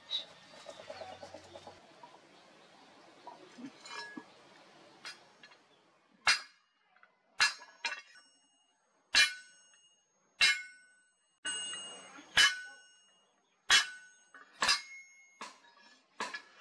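Hammer tapping a small hand chisel to engrave lettering into a leaf-spring-steel cleaver blade: from about six seconds in, about nine sharp metallic strikes roughly a second apart, each leaving a short ring from the blade.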